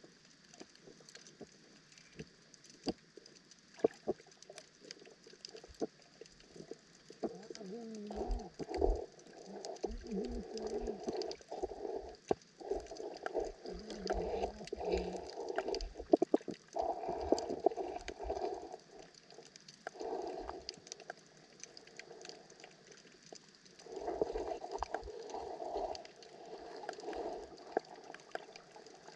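Underwater sound picked up by a camera resting on the seabed: scattered sharp clicks and crackles throughout. Two long stretches of muffled rumbling and bubbling come in about seven seconds in and again near the end, the first with a wavering hum.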